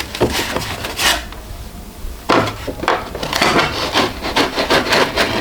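Packing foam rubbing and scraping against the 3D printer as it is worked loose and pulled out, in irregular strokes that grow denser and louder a little past two seconds in.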